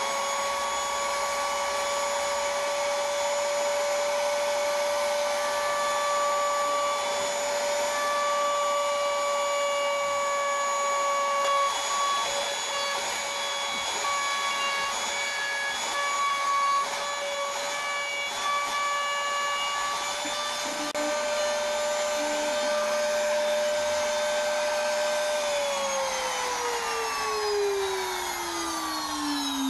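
Electric router running at full speed in an acrylic router jig, a steady high whine with small changes as acrylic box side panels are fed through to cut grooves. About four seconds before the end it is switched off, and the whine falls steadily in pitch as it winds down.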